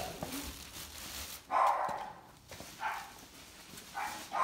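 A dog barking in kennels: three short barks, the first and loudest about a second and a half in, then two weaker ones.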